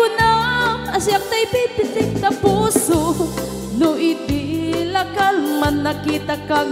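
Band music from a medley of Ilocano balse (waltz) songs: a wavering melody line over a steady bass.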